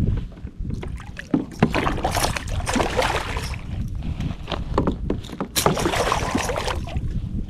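Lake water splashing and sloshing against a plastic kayak in two long swells, with two sharp knocks on the hull about a second and a half in, over a steady low wind rumble on the microphone.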